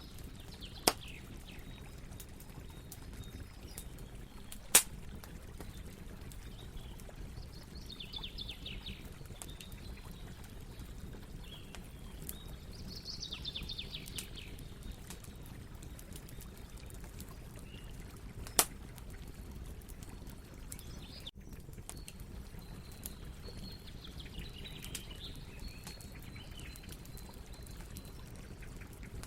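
Campfire burning with a steady low rustle and three sharp pops from the wood, about a second in, near five seconds and near nineteen seconds. Trilled chirping calls come a few times over the fire.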